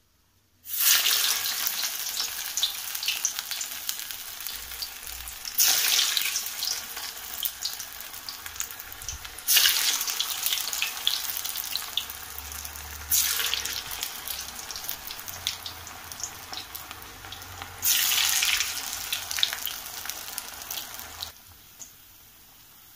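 Kofta balls deep-frying in hot oil in a kadai: a loud steady sizzle that flares up suddenly five times, about every four seconds, as balls are dropped into the oil one by one, easing after each flare. The sizzle falls much quieter near the end.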